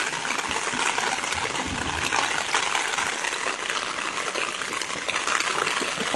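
Floodwater gushing: a steady, unbroken rush of water.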